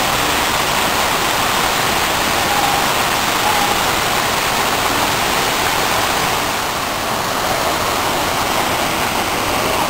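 Havasu Falls, a tall waterfall, pouring into its plunge pool: a steady, even rush of water.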